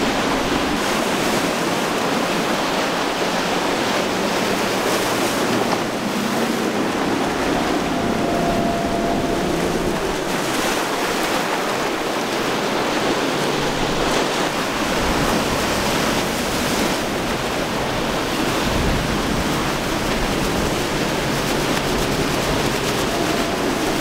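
Waves and boat wake splashing, with wind buffeting the microphone and the outboard motors of passing boats running faintly underneath.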